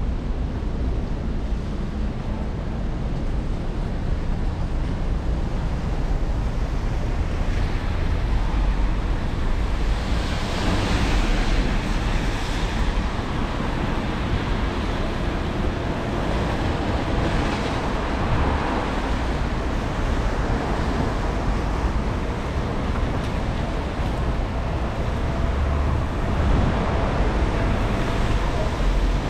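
City street noise in drizzling rain: a steady low traffic rumble, with the hiss of vehicle tyres on the wet road swelling several times as cars pass.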